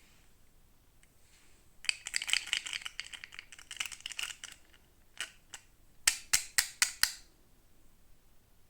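Small plastic toy pieces and packaging being handled: a dense rattling clatter of clicks for about three seconds, then two single clicks and a quick run of five sharp clicks.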